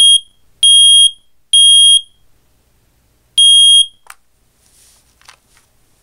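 FireX i4618AC hardwired smoke alarm sounding on its test button: three loud, high-pitched beeps in the temporal-three evacuation pattern, a pause, then one more beep, after which it stops.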